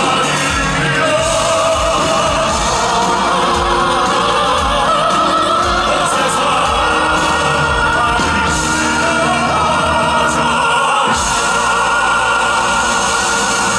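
Male crossover vocal quartet singing in an operatic style over a band or orchestral backing, voices holding long sustained notes.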